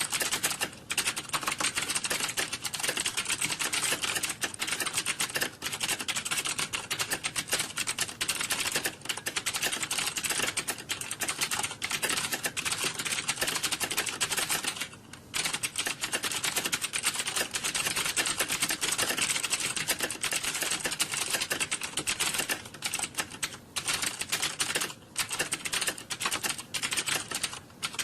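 Fast, continuous typing on a computer keyboard: a dense stream of key clicks, broken by a brief pause about halfway through and two short ones near the end.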